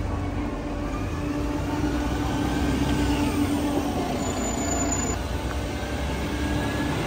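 Mercedes-Benz Citaro city bus's diesel engine running as the bus drives past and pulls away: a steady low engine hum with faint whines that rise and fall.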